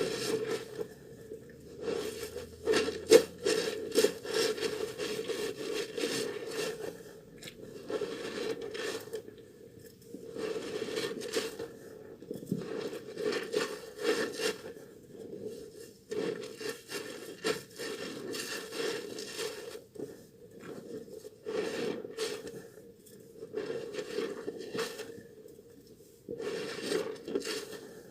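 Hands lathering a wet, soaked bar of soap: repeated scraping, squishing rubs that come in bursts of a second or two with short pauses between.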